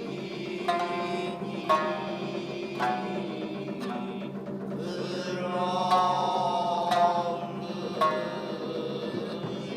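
Tokiwazu music: shamisen notes plucked singly, roughly once a second, each dying away, with a drawn-out, wavering chanted voice held over them about halfway through.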